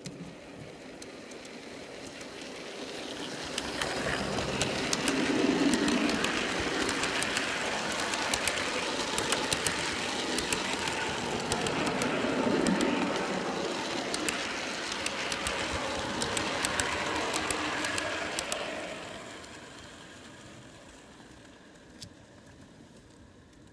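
A G-scale model train passing on the adjacent track: a steady rolling rumble with many rapid wheel clicks. It swells about four seconds in and fades away after about eighteen seconds.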